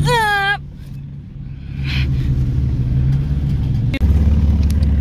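Off-road vehicle engine running steadily at low revs while it is pulled through deep mud and water. A short shouted exclamation comes at the start. At about four seconds the sound cuts abruptly and a louder, deeper engine drone takes over.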